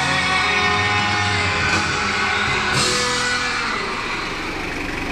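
A song with guitar and singing played through a car's aftermarket JBL speakers, ending about four seconds in. The Mitsubishi Adventure's engine idles steadily underneath and is left on its own at the end.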